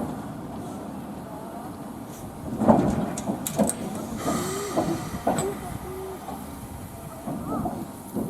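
A train moving slowly during shunting, with several sharp metallic clanks between about two and a half and five and a half seconds in and a brief hiss about four seconds in.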